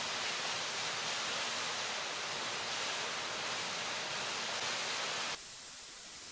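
Steady, even hiss with no distinct events. About five seconds in it drops abruptly to a quieter, thinner hiss.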